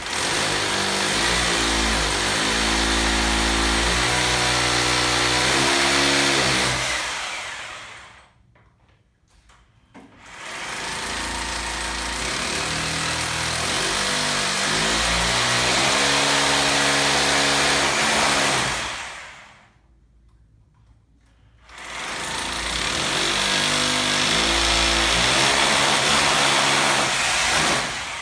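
Electric drill boring holes into a plastered masonry wall for wall plugs, run three times for several seconds each with short pauses between; the motor's pitch wavers as the bit bites and winds down at the end of each run.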